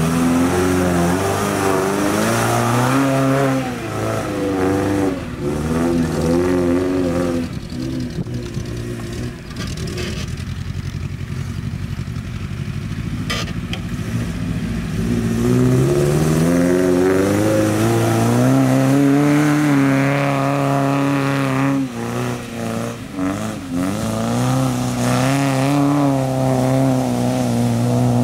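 1994 Toyota pickup's engine revving hard while spinning through mud, its pitch climbing and dropping again and again. It eases off to a lower, rougher sound for several seconds in the middle, then revs up again.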